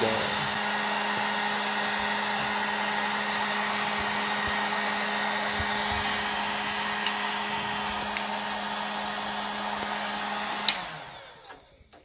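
Heat gun running steadily with the hiss of its blowing air and a steady motor hum, warming a hard-line water-cooling tube to soften it for bending. Near the end it is switched off with a click and the fan winds down, fading out within about a second.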